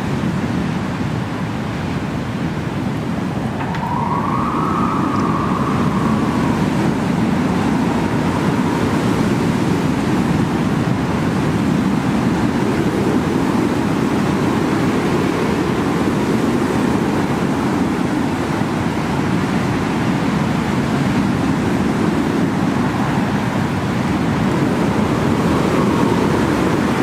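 Strong windstorm gusts: a loud, continuous rush of wind that swells and eases every few seconds. About four seconds in, a brief higher tone rises and falls over the rush for a couple of seconds.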